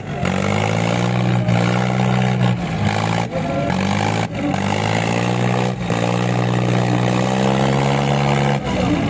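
Eicher 557 and Sonalika 750 tractor diesel engines running flat out under heavy load as they pull against each other in a tug-of-war. The engine note stays steady, dips briefly a few times, and sags near the end.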